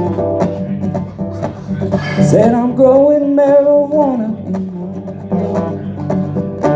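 Acoustic guitar strummed in a steady rhythm as a song opens. About two seconds in, a long wordless sung note rises, holds and falls away.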